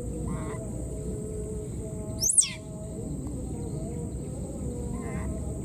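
Steady high-pitched drone of insects in wet vegetation. A little over two seconds in, one short, shrill call sweeps sharply down in pitch, the loudest sound, with a few faint chirps around it.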